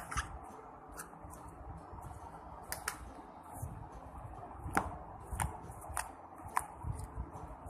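Slime being squeezed and stretched by hand, with small, irregularly spaced pops and clicks as air pockets burst.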